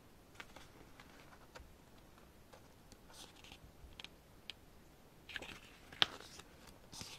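Pages of a paper photobook being handled and turned: faint paper rustles and small clicks, with the loudest snap about six seconds in.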